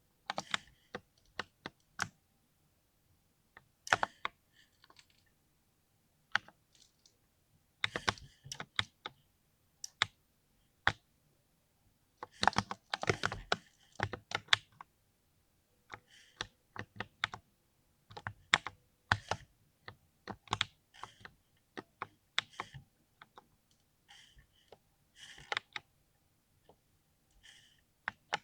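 Mechanical keyboard being typed on, with creamy-sounding keystrokes coming in irregular bursts separated by short pauses of a second or two.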